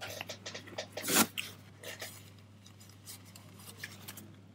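Quiet chewing and small mouth clicks while eating a hamburger, with light handling of its paper wrapper. One short, louder sound comes about a second in.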